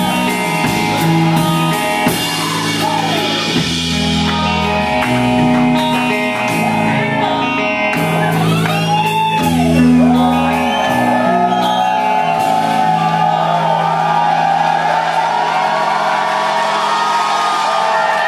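Instrumental rock played live with looped electric guitar and bass over drums; about two-thirds through the low bass line drops out, leaving sustained looped guitar tones. Audience members whoop and shout over the music.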